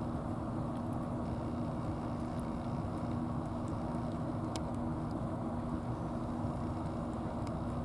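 A steady mechanical drone with a constant low hum, unchanging throughout, with a few faint clicks on top.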